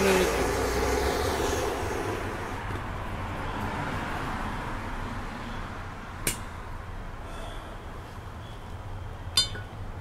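Hand torch on a MAP gas cylinder hissing steadily, dying away about two seconds in. A sharp click follows about six seconds in, and near the end a metal rod clinks against a small steel dish with a short ring.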